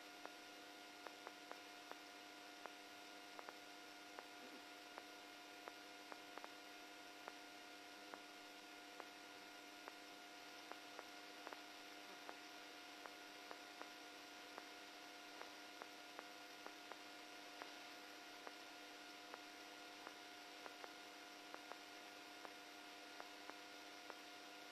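Near silence: a faint steady electrical hum and hiss, with scattered faint clicks.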